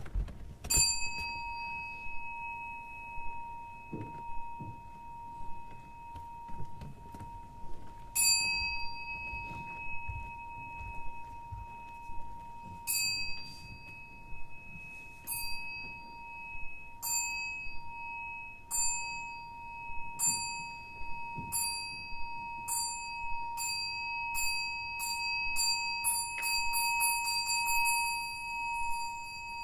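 A metal bell struck again and again, each stroke ringing on clearly: the first stroke about a second in, then strokes several seconds apart that come quicker and quicker until they run into a rapid roll near the end, the accelerating roll-down used to sound a Zen temple bell.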